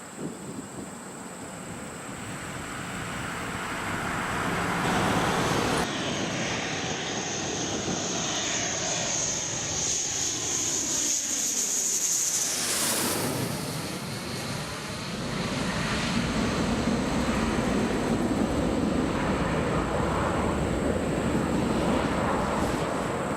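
F-15 fighter jet passing low overhead on landing approach: a high engine whine builds to a peak about halfway through, sweeps as the jet passes, then gives way to a deep rumble as it moves away down the runway.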